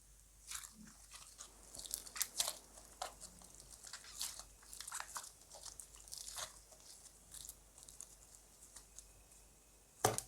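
Slime being mixed and worked by hand, making irregular sticky crackles and small pops, with one sharper click near the end.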